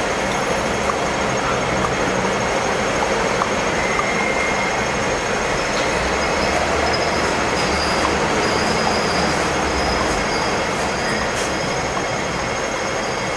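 Hong Kong double-decker electric tram, heard from its upper deck: a steady rumble of the tram mixed with street noise, with faint thin high squeals coming and going, the wheels on the street rails.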